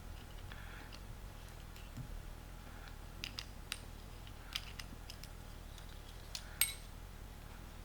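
Scattered light clicks and clinks of the small metal parts of a door jamb light switch (spring, plunger, contact) being handled and taken apart, the sharpest click a little before the end with a brief metallic ring.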